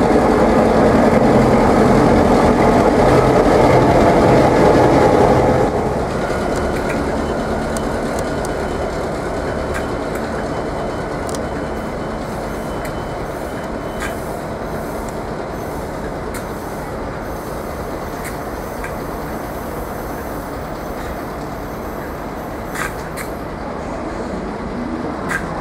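Victorian Railways T class diesel locomotive T364, running light engine, its EMD eight-cylinder two-stroke diesel loud as it passes close, then dropping off sharply about six seconds in as it moves away. After that come a thin wheel squeal and a few clicks from the wheels on the track.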